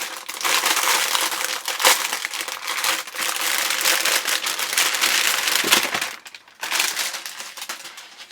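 A packaging bag crinkling and rustling as it is handled and opened, with a brief pause about six seconds in, after which the rustling goes on more softly.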